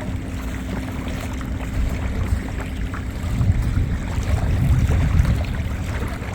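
Wind buffeting the microphone as an uneven low rumble, over a faint steady hum and scattered light ticks.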